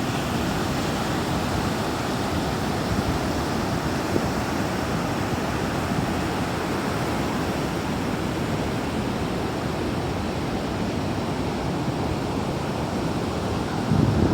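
Strong ocean waves: a steady, unbroken wash of surf noise with no single wave standing out, growing louder right at the end.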